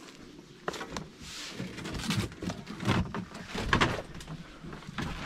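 Footsteps with irregular knocks and rustling, busiest about two to four seconds in.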